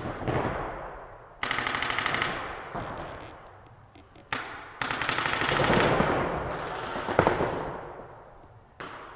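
Paintball markers firing in long, very fast rapid-fire bursts, several streams one after another, echoing in a large indoor hall.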